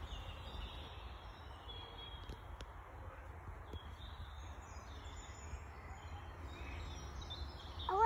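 Quiet woodland ambience: faint, scattered bird chirps over a low steady rumble.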